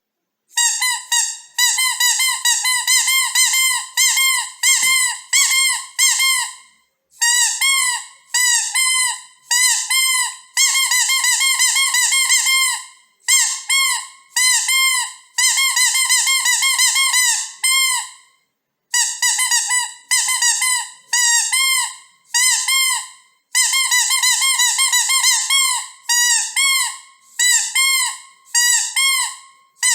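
Squeaker of a rubber dog-toy bone being squeezed repeatedly, giving high-pitched squeaks about three a second in quick runs with short pauses between them.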